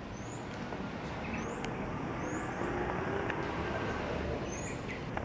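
Steady background hum of road traffic, with a small bird giving short rising chirps several times.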